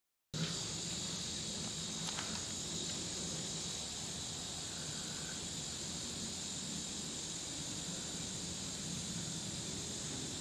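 Steady chorus of insects buzzing in the streamside woods, a high, even drone that starts a moment in after a brief silence.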